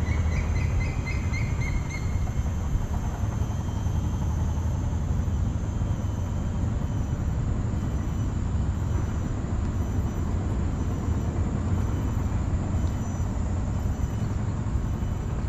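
Steady low outdoor rumble, with a quick run of high chirps in the first two seconds.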